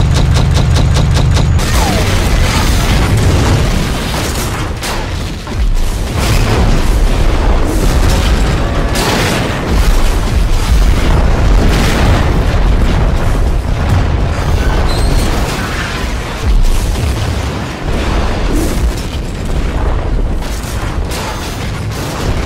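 Explosions and booms one after another, with a heavy low rumble, over background music. A fast, even rattle of sharp reports opens it in the first second and a half.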